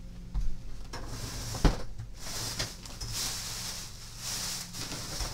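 Soft rustling and scraping of objects being handled, with one knock about a second and a half in.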